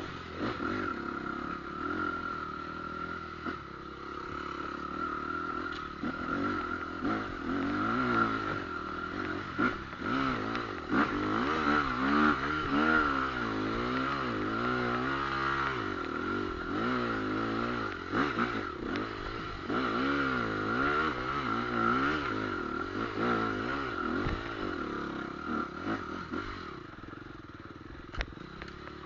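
Motorcycle engine under way, its revs rising and falling again and again as the rider works the throttle, with a steady high whine running alongside. It settles to a lower, steadier note near the end, where a couple of sharp knocks are heard.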